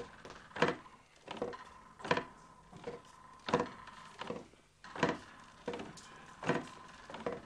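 Rhythmic wooden knocking at an even pace, about one knock every three-quarters of a second, over a faint steady tone.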